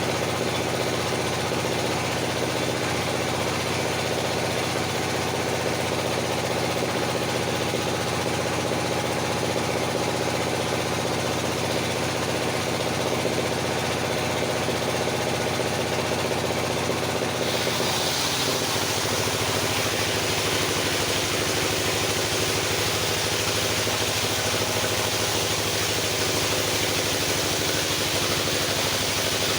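Engine-driven circular sawmill running steadily. About two-thirds of the way through, the engine note drops and a harsh hiss joins it, the sound of the saw taking load.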